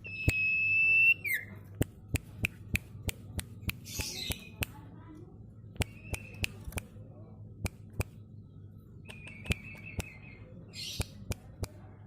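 Young sirtu songbird giving its clicking 'ceplekan' call: a run of sharp snapping clicks, one or two a second, opening with a held high whistle that drops off, with a few short whistled notes and two raspy chatters, over a steady low hum.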